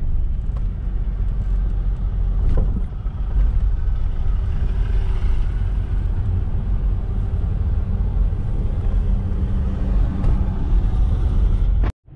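Car cabin noise while driving: a steady, loud low rumble of road and engine. It cuts out briefly near the end.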